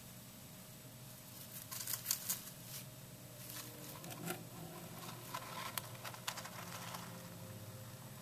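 Faint crinkling, scratching and clicking from a Russian dwarf hamster moving about in its cage: a short flurry of crinkles about two seconds in, then scattered light ticks, over a steady low hum.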